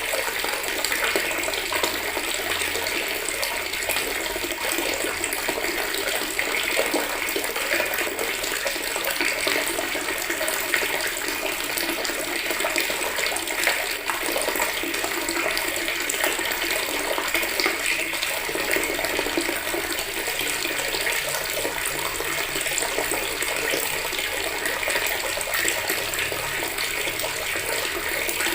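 Water running steadily from a tap into a bucket, splashing and filling.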